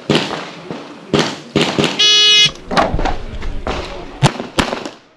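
Electronic shot timer sounds its start beep, one steady electronic tone about half a second long, about two seconds in. Sharp pistol shots crack before the beep and in a quick string after it.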